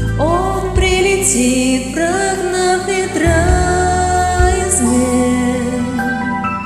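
A woman singing a slow, melodic vocal line over a karaoke backing track, sliding up into held notes.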